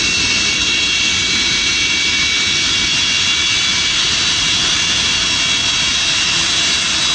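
Antonov An-124's four D-18T turbofan engines at taxi power as the freighter rolls close past. A loud steady rush of jet noise with several high steady whining tones over it.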